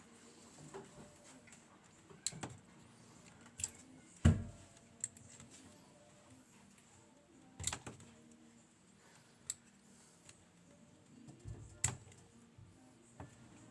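Scattered clicks and taps of hand tools working on an Abus D6 euro cylinder lock being taken apart, about eight in all, with one heavier knock about four seconds in.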